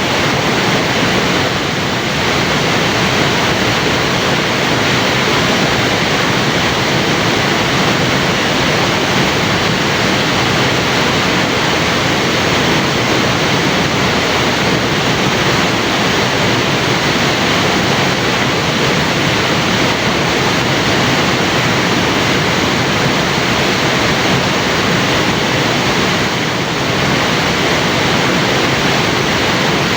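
Loud, steady rush of falling water from a waterfall.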